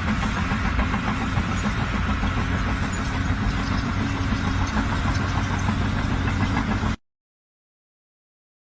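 An engine running steadily at an even pitch, which cuts off suddenly about seven seconds in, followed by silence.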